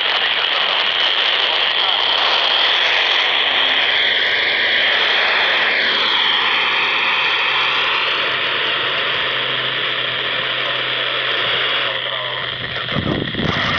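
Baofeng handheld radio's speaker playing the FM downlink of the AO-91 amateur satellite on 145.960 MHz: a loud, steady hiss of static with faint whistling tones that slide in pitch around the middle.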